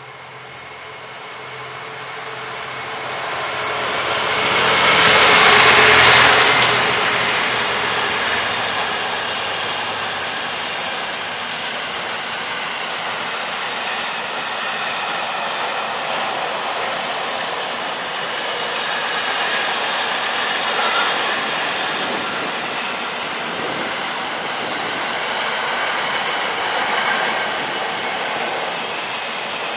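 Class 66 diesel-electric freight locomotive passing close by, hauling a container train. Its engine noise builds to a peak about six seconds in as the locomotive goes by. After that comes the steady, even noise of the loaded container wagons rolling past on the rails.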